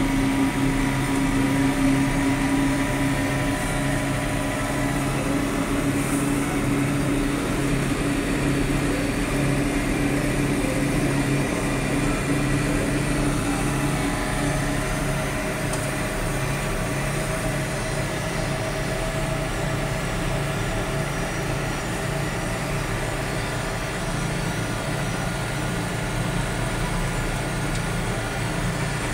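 John Deere tractor engine running steadily while driving on the road, heard from inside the cab.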